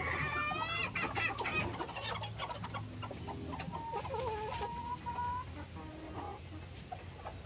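Bantam chickens clucking and calling: a run of loud calls in the first second and a half, then a long, wavering call from about four to five and a half seconds in.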